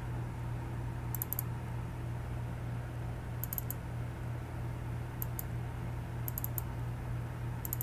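Computer mouse buttons clicked in quick pairs and triplets, five times, to open Amiga Workbench icons, over a steady low hum.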